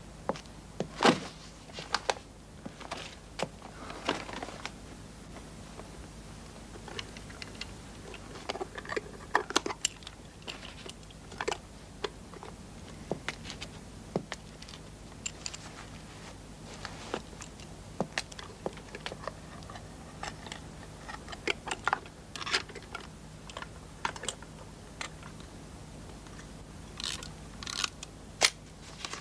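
Irregular clicks, knocks and rustles of papers and small objects being handled at a desk, with a sharper run of clicks near the end, over a faint steady hum.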